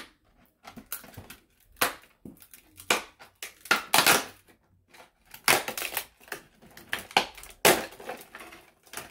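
Rigid plastic toy packaging crackling and snapping as it is pried and pulled apart by hand, in irregular bursts.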